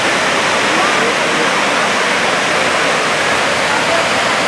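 Reedy River Falls: water rushing steadily over a broad rocky waterfall, an even, unbroken noise.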